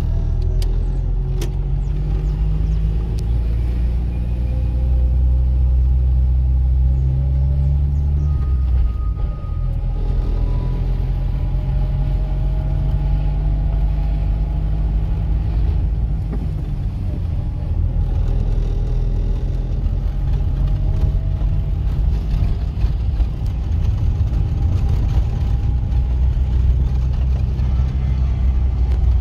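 Car driving slowly, heard from inside the cabin: a steady low engine and road rumble, with the engine note rising and dropping a few times as it speeds up and slows.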